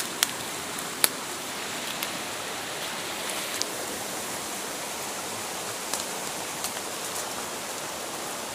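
Steady rush of flowing water from a forest stream, with a few sharp clicks in the first few seconds.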